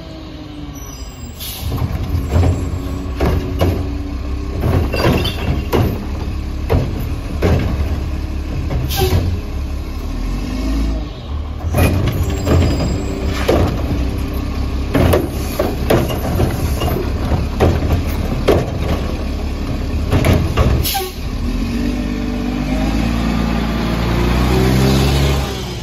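Mack LE garbage truck with a McNeilus Atlantic front-loader body and Curotto-Can arm collecting carts: the diesel engine runs under a long series of knocks and clanks as carts are picked up and tipped into the can. About 21 seconds in, the engine revs up as the truck pulls away close by.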